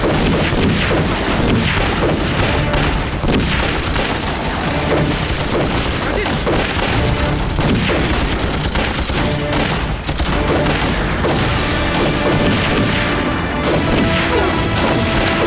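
Rapid gunfire from rifles, pistols and a machine gun, mixed with booms, in a staged film battle. Dramatic background music plays under it, and the music's held notes come through more clearly in the second half.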